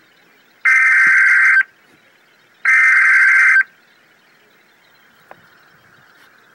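Two bursts of Emergency Alert System SAME header data, each about a second long and a second apart: the buzzy, raspy digital tone of the encoded header that opens a severe thunderstorm warning broadcast. A faint hiss lies underneath.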